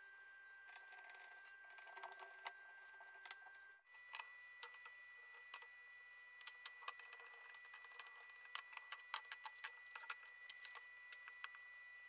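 Faint, scattered clicks and ticks of a washing machine's plastic-and-metal water inlet solenoid valve being handled and unscrewed with a screwdriver, over a faint steady high-pitched whine that steps slightly higher about four seconds in.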